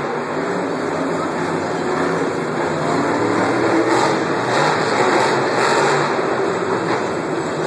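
Monster truck engines running and revving, a loud steady drone with no break.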